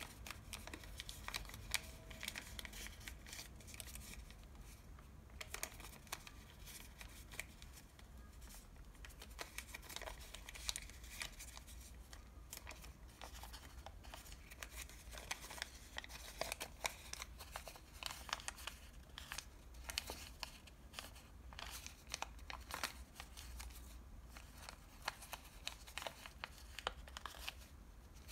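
A paper french-fries bag being folded and creased by hand: continuous crinkling and rustling of the paper, with frequent small crackles and snaps as folds are pressed down.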